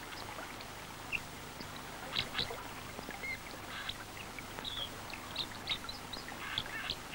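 Faint birds calling, short high chirps scattered irregularly over a quiet outdoor background.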